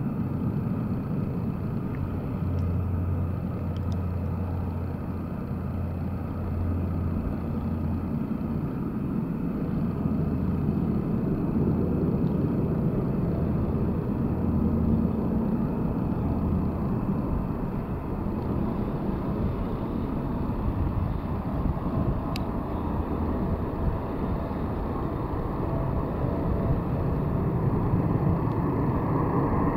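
Boeing 747-8F's four GEnx turbofan engines on final approach: a steady low rumble that grows louder as the jet nears.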